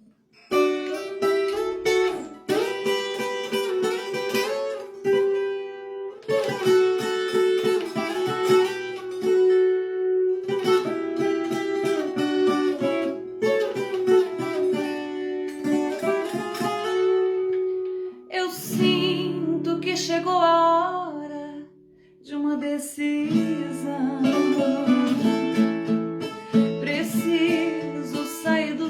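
Instrumental music with a viola caipira, the Brazilian ten-string guitar, playing plucked runs and strums over a sustained accompaniment. The music drops briefly about three-quarters of the way through, then comes back in.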